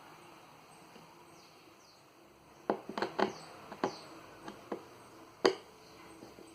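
Handling noises while taking apart a plastic speaker box: a run of sharp clicks and knocks that starts a little before halfway, the loudest about a second before the end.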